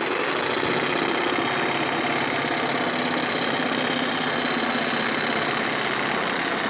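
Corded reciprocating saw running steadily, its fine-tooth 18 TPI bi-metal DeWalt blade cutting through 2-inch foil-faced foam insulation board.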